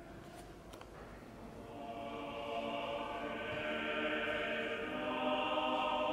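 A choir singing slow, held chords. It fades in about two seconds in and grows louder.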